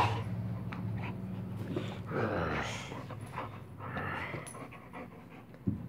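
Saint Bernard puppy panting as it mouths and tugs a rubber toy, over a steady low hum. A single thump near the end.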